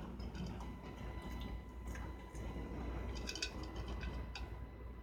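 A small dog with its mouth at its bowl, making a few faint, irregular clusters of clicking mouth sounds.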